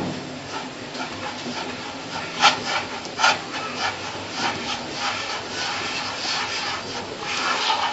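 Palms rubbing and rolling water-dampened semolina, working it into the small grains of berkoukech: a continuous rasping of hand strokes over the grains, with two louder strokes a little before the middle.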